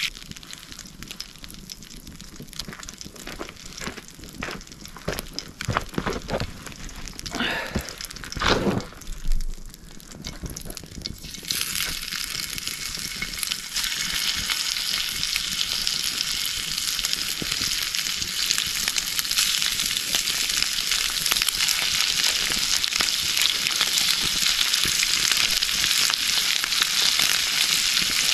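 Grouse meat frying in butter in a cast-iron skillet over a campfire. A quieter crackle with a few knocks first, then a loud, steady sizzle sets in partway through and holds.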